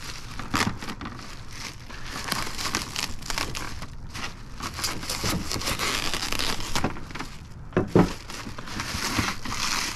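Clear plastic wrap crinkling and tearing as it is pulled and stripped away by hand, with a sharper snap about eight seconds in.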